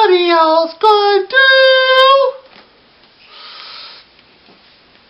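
A high voice sings alone, with no backing, and ends the last line on a steady held note about halfway through. A brief faint breathy hiss follows.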